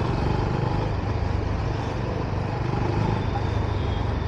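Steady road noise from a moving vehicle in city traffic: an even low rumble with a hiss over it.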